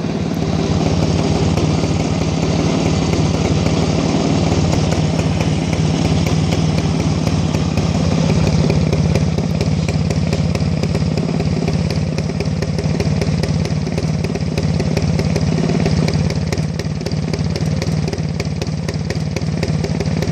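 Rajdoot 175 motorcycle's single-cylinder two-stroke engine idling steadily, its exhaust note a regular, even pulsing.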